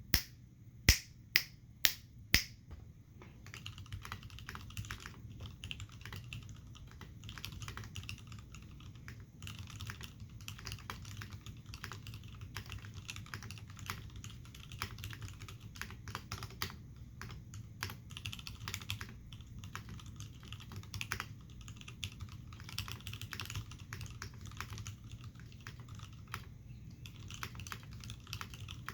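Typing on an Iron180 mechanical keyboard with lubed, filmed Hirose Cherry MX Clear tactile switches, Cherry dye-sub keycaps, a brass bottom and a forged carbon-fibre plate: dense, continuous keystrokes from about three seconds in. It opens with a handful of louder, sharp clicks about half a second apart.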